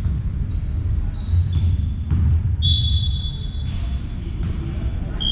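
Basketball game in play: a ball bouncing on the court and sneakers squeaking on the floor, with one longer squeak about two and a half seconds in.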